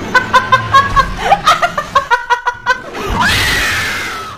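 A young woman laughing hard in rapid bursts, then about three seconds in letting out one long, high shriek that slowly drops in pitch and fades.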